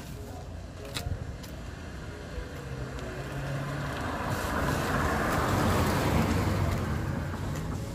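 A car drives past: its engine and tyre noise builds up to a peak about six seconds in, then starts to fade.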